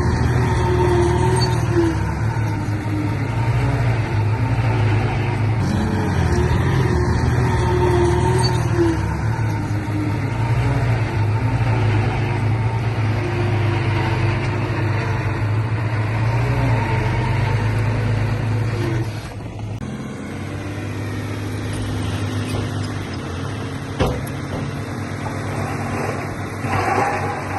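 Heavy diesel engine of earthmoving machinery running steadily under load, easing off about two-thirds of the way through, with a single sharp knock a few seconds later.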